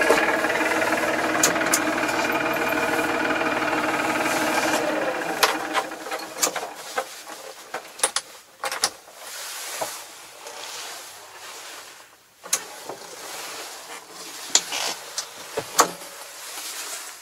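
Tractor engine running steadily, heard from inside the cab while mowing. About five seconds in, the engine sound drops away, leaving scattered clicks, knocks and rattles at a lower level.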